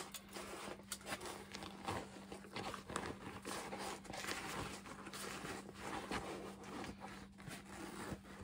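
Kubota ZD21 mower seat's cover being pulled and peeled off its cushion: continuous rustling and scraping of the material with small crackles and tearing where the cover was glued on. A steady faint hum runs underneath.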